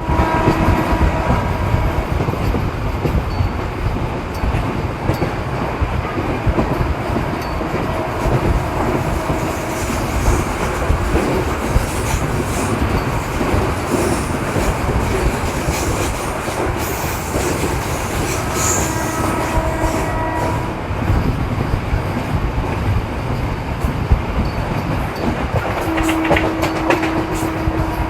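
Indian Railways MEMU electric train running on the rails: a continuous rumble of wheels on track, with a few brief steady tones that come and go several times.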